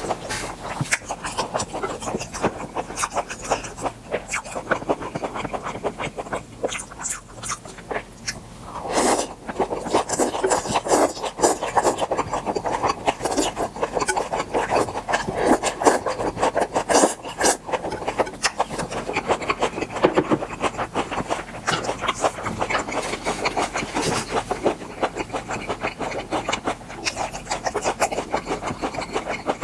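Close-miked chewing of grilled beef offal: a continuous stream of many small clicking, crackling mouth sounds.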